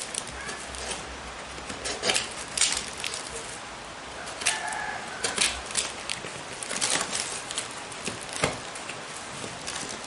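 Cardboard lining and wooden crate being cut and pried open by hand with a cutter knife and a prying tool: irregular scrapes, rips and rustles.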